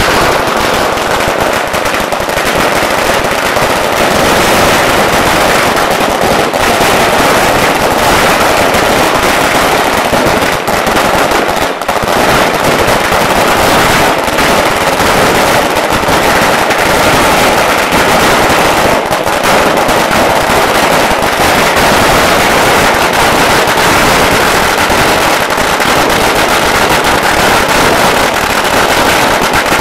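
A string of 100,000 firecrackers going off in one unbroken, very loud barrage of rapid overlapping bangs, setting in suddenly.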